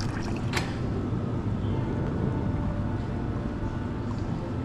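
Steady low hum, with a single sharp click about half a second in.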